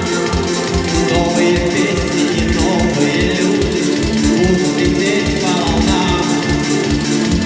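A man singing a Russian song into a handheld microphone, holding long notes over instrumental backing with a steady beat.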